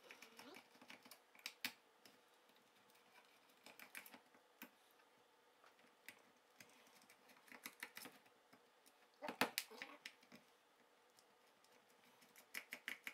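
Faint, scattered clicks and taps of a small precision screwdriver working screws out of the bottom plate of a JAM Bluetooth speaker, with a louder run of clicks about nine seconds in.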